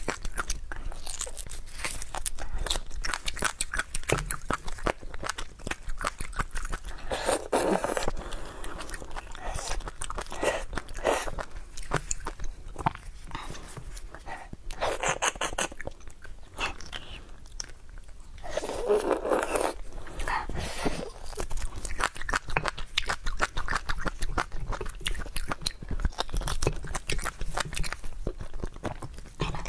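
Person eating braised marrow bones: chewing and biting, with many quick crunchy clicks. There are a few louder stretches about 7, 15 and 19 seconds in.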